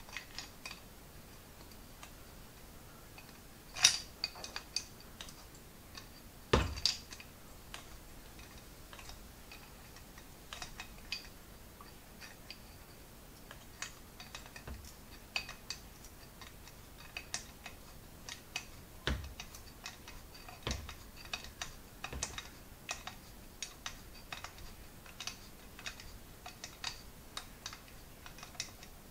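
Small metal clicks and taps, irregular and light, from a spanner working a nut on a Zenith carburettor, pulling a tight-fitting part together along the thread. Two louder knocks come about four and six and a half seconds in.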